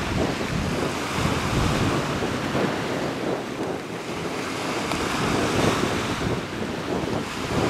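Wind buffeting the microphone: an uneven, gusty low rumble over a steady rushing noise.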